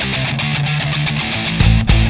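Background rock music with electric guitar; heavy beats come in about one and a half seconds in.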